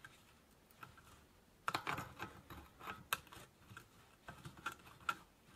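A steel 15 mm open-end wrench clicking and scraping against a tight axle nut on a bicycle drum-brake hub as it is fitted on and pulled at. The sound is a scatter of small metal clicks, busiest about two and three seconds in.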